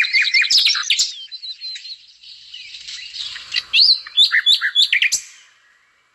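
Small birds chirping, a quick string of short, high calls and trills that fades out near the end.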